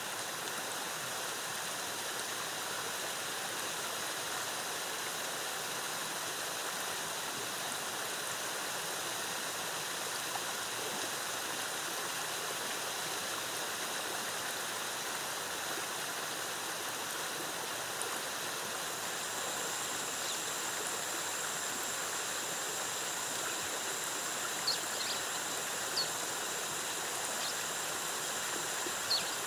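Waterfall in a rainforest, water cascading with a steady, even rush. A thin high whine joins about two-thirds of the way in, and a few brief high chirps sound near the end.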